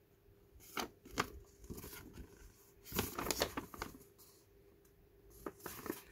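Paper instruction leaflet rustling and crackling as it is handled and refolded, in several short bursts, the loudest about three seconds in.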